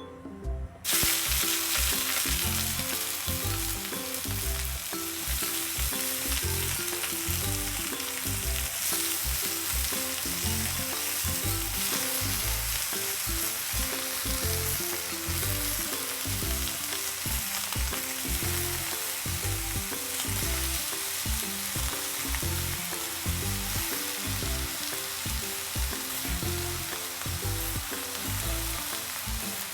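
Food frying in a hot pan: a steady sizzle that starts suddenly about a second in.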